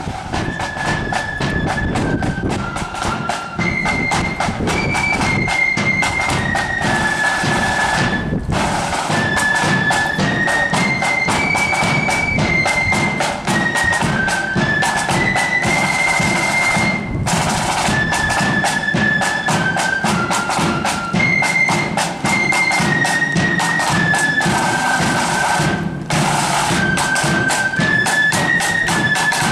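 Marching flute band playing a tune on flutes over snare and bass drums. The high melody moves in held steps under a steady drumbeat and breaks off briefly between phrases, about every nine seconds.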